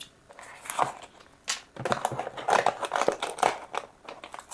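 A blind box's cardboard and packaging being opened by hand: irregular rustling, scraping and crinkling that starts about a second in.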